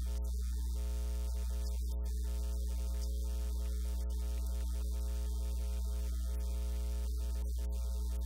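Steady electrical mains hum: a loud low buzz with a stack of overtones, unchanging throughout, with no voices heard over it.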